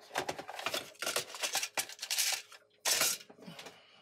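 Rustling and scraping as things are handled close to the microphone, in a quick run of noisy bursts that are loudest about two and three seconds in.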